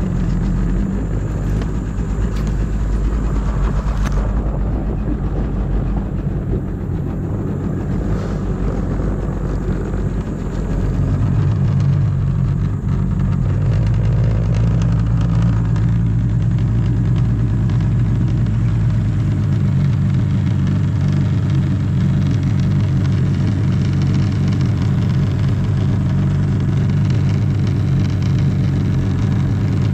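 Jet ski engine running at low speed, then louder and steadier from about ten seconds in as the craft picks up pace.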